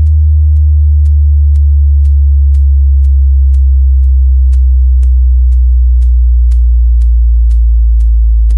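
Electronic subwoofer test signal: a loud, deep sub-bass tone slowly sliding down in pitch, with a sharp kick-like click ticking about twice a second.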